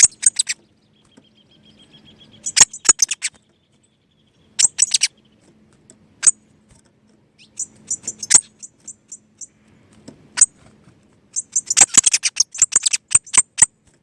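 Small bird chirping in short clusters of sharp, high chirps a second or two apart, building to a rapid flurry near the end.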